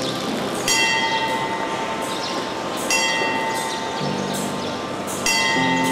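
Bell struck three times, about two and a half seconds apart, each stroke ringing on, with a lower hum coming and going. The strokes sit over a steady hiss of rain.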